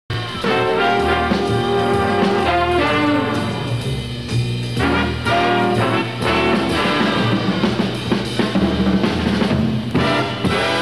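Music with brass instruments and a drum kit, playing without a break.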